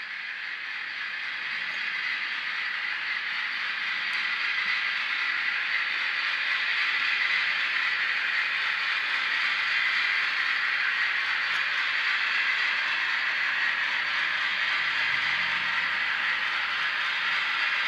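HO scale model train, an ALCO RSD-4/5 diesel locomotive pulling passenger cars, running along the track. It makes a steady rattling hiss of wheels and drive, which grows louder over the first several seconds as the train comes closer, then holds.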